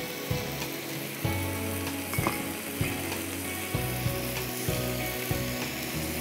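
Thin strips of beef undercut sizzling in a non-stick frying pan over a gas flame, with dark soy sauce just poured in. A few light clicks sound over the steady hiss.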